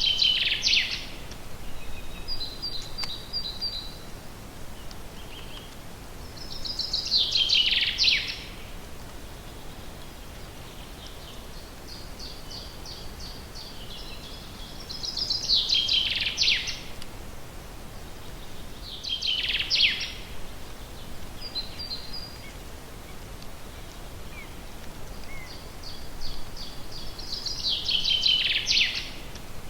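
Songbird singing in a forest: five loud song phrases, each about a second long and falling in pitch toward the end, with softer high chirps from other birds between them.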